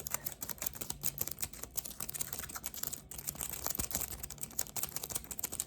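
Close-miked adhesive tape being handled, pulled and snipped: a dense run of rapid, irregular clicking and crackling.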